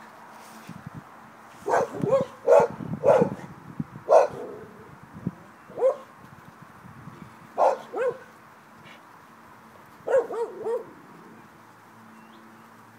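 Five-week-old Wheaten puppies yapping and growling in short bursts while they tug at a rope toy. The calls come in clusters, busiest about two to three seconds in, then again around four, six, eight and ten seconds.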